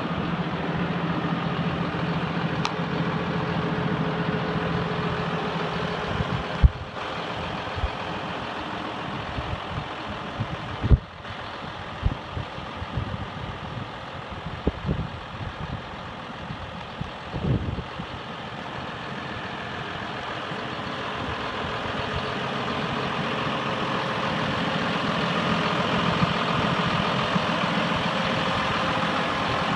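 John Deere 6140R tractor's six-cylinder diesel idling steadily. A few sharp knocks are heard around the middle.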